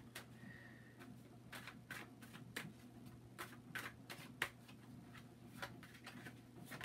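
Deck of tarot cards being shuffled by hand: a faint run of short, irregular card clicks and flicks.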